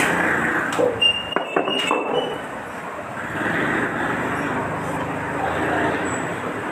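Several sharp clinks of tableware, each with a brief ring, between about one and two seconds in, over a steady murmur of background voices.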